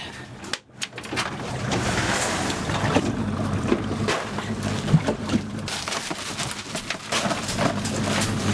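Rustling and knocking of bagged ice and a fish being handled in a plastic cooler, over a steady low hum.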